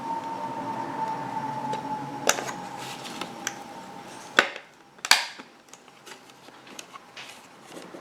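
Parts of a refrigerator's evaporator fan assembly knocking and clicking as they are handled and fitted into place by hand, with two sharp knocks about halfway through. A steady high hum in the background stops at the first of these knocks.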